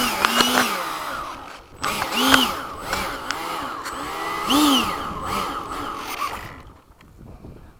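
Electric ducted-fan motor of an FMS 80mm Hawk RC jet whining, its pitch rising and falling in three short throttle blips, then winding down about six and a half seconds in.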